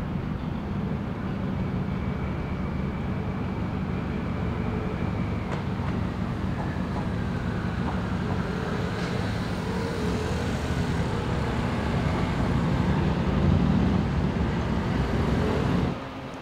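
Steady low rumble of passing vehicles, growing louder in the last few seconds, with faint whining tones that rise and fall over it; it cuts off abruptly near the end.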